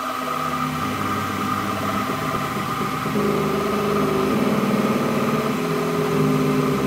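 WMD25 bench milling machine converted to CNC, its spindle running as the end mill cuts a slot through a metal plate under computer-controlled feed: a steady machine hum with a high whine. A lower, slightly warbling tone joins about three seconds in and keeps on.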